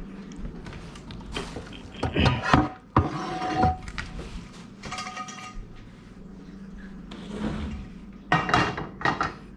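Kitchen clatter: dishes, cookware and utensils being handled, knocking and clinking, some clinks briefly ringing. The loudest knocks come about three seconds in and a cluster near the end.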